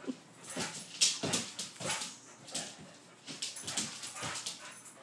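A young dog play-fighting on a hardwood floor: a string of short, irregular scuffling and scrabbling sounds from its paws and body, with small dog noises among them.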